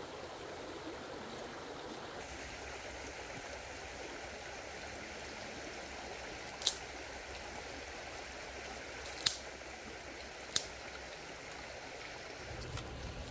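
Steady rushing outdoor background noise, with three sharp short clicks or snaps in the second half.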